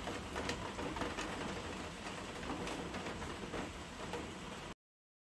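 A fudge brownie being broken apart by hand: scattered crackles and crumbling clicks over a steady low rumble, cutting off suddenly near the end.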